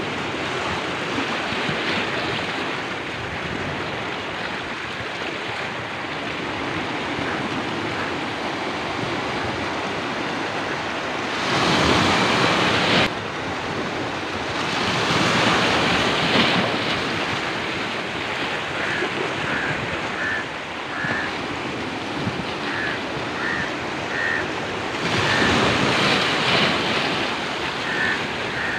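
Sea waves washing and breaking around shoreline rocks, with wind noise on the microphone; the wash swells louder twice.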